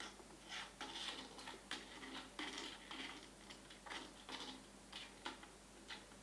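Hagen Catit Design Senses labyrinth cat toy being played with: light, irregular plastic clicks and rattles, about a dozen, stopping shortly before the end.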